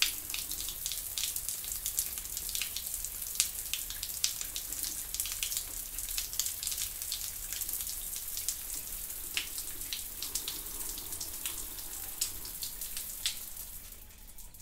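Shower water running: a steady spray hiss with constant sharp splashes of drops striking a surface, fading near the end.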